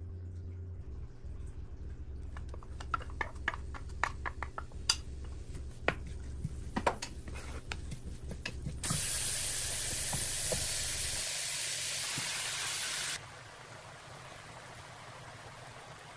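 Frying in a nonstick pan: scattered sharp pops and crackles from the hot oil, then a loud even sizzle of diced onions frying for about four seconds that cuts off abruptly, followed by a softer frying hiss.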